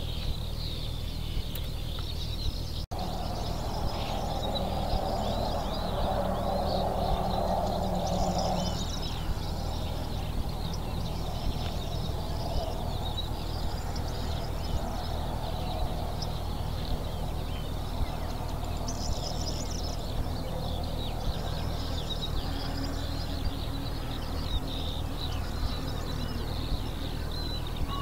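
Small birds chirping and singing over a steady low hum, with a low drone swelling for a few seconds from about four seconds in.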